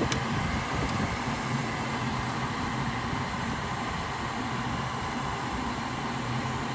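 Induced-draft blower motor of a Carrier gas pack running with a steady hum and rush of air. The inducer runs but the pressure switch does not close, the six-flash pressure switch fault that stops the unit firing; the technician later traces it to a clogged pressure switch port.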